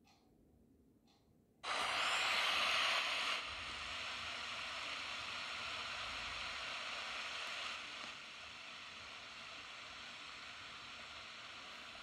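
Steady rushing hiss of a waterfall heard from a distance. It cuts in suddenly about two seconds in after near quiet, is loudest for a second or so, then eases down in two steps.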